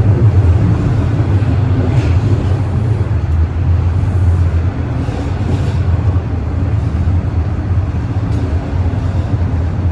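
TTC Line 4 subway train running between stations, heard from inside the car: a steady, loud low rumble of wheels and motors on the track.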